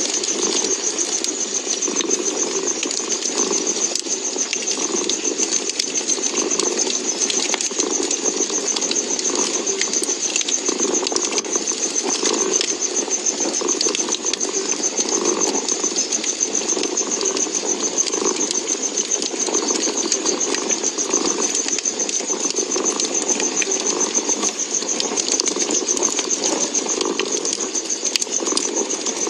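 A cat purring steadily, the purr swelling and fading with each breath, over the light crackle of a wood fire.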